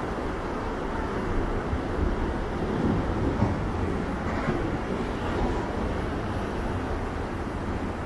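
Heavy storm-surge surf (ressaca) making a steady low roar and hiss, with no single wave crash standing out.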